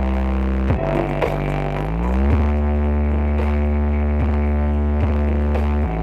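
Loud electronic dance music with deep, sustained bass, played through large sound-system rigs (sound horeg). The bass line slides up in pitch about two seconds in, under sparse beat hits.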